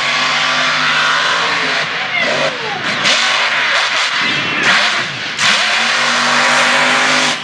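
Mega truck racing buggy's engine held at high revs, with the revs dipping and rising again in the middle.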